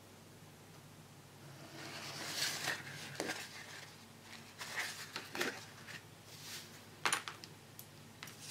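Handling of a stiff sheet of wafer paper, rustling as it is lifted and set back down on the table, with a few light clicks and taps in between.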